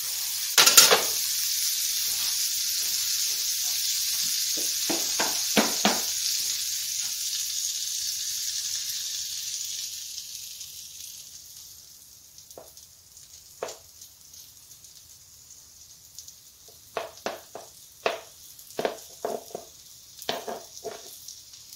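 Butter sizzling in a hot cast-iron skillet, a steady hiss that dies away about halfway through, with a few clicks of a utensil against the pan. Then light taps and clicks of a spoon against the bowl and pan as pancake batter is spooned in.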